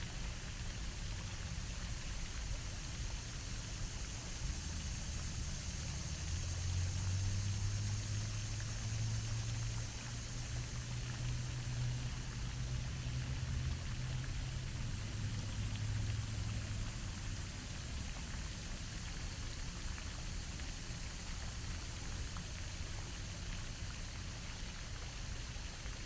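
Floating pond fountain's vertical jet, its spray falling back onto the water in a steady splashing hiss. A low hum swells and fades in the middle.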